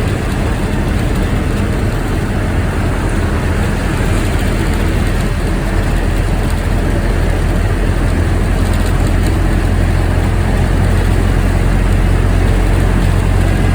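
Bus engine running steadily, a deep hum that grows a little louder in the last few seconds.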